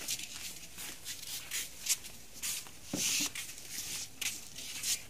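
Rice being scooped from a large metal pot onto plates with a serving paddle: short scraping and rustling strokes, about three a second, with a longer, louder scrape about three seconds in.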